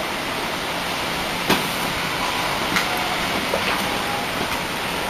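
Steady hiss of background noise with a few faint clicks.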